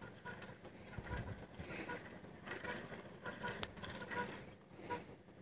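Faint outdoor background: short, high chirps repeating every fraction of a second, with a few light ticks.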